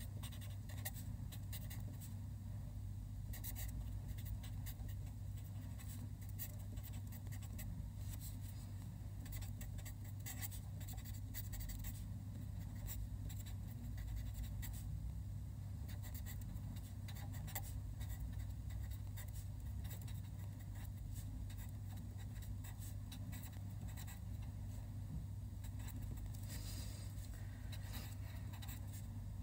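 Marker pen writing on paper: a quick run of short scratchy strokes as Chinese characters are written, over a steady low hum.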